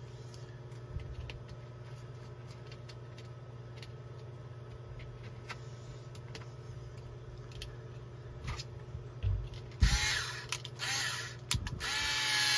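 Quick Turn cordless screwdriver running twice near the end, each run about a second long, driving a mounting screw.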